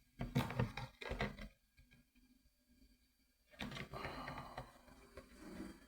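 Light clicks and taps of a plastic syringe and saline container being handled during the first second and a half. A soft rustling hiss follows from about three and a half seconds in.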